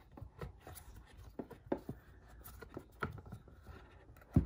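Handling noise from a tablet folio case: faint clicks, taps and rubbing as the cover flap is folded against the iPad Pro, with a sharper knock about three seconds in and another right at the end.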